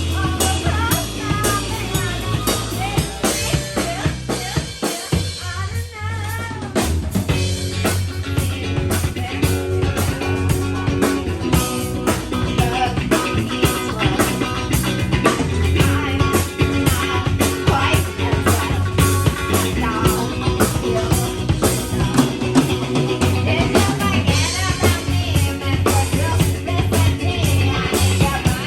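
Music with a drum kit keeping a steady beat over bass and guitar.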